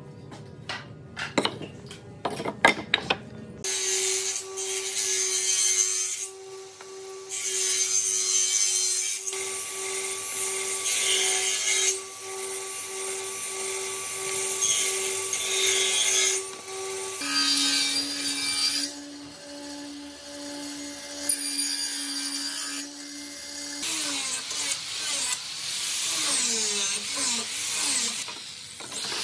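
Wood strips clacking and knocking together as they are handled. Then a table saw motor runs with a steady hum while wood is cut, with short breaks, followed by a lower machine hum for several seconds. Near the end an angle grinder with a sanding disc runs over carved wood, its pitch wavering up and down as it is pressed on.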